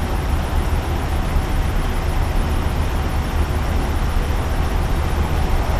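Steady low rumble and hiss of truck-stop and interstate traffic, with heavy trucks running.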